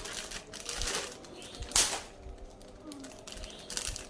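Snack packaging being handled: fast clicky crinkling of plastic wrapper, with one louder rustling burst just under two seconds in.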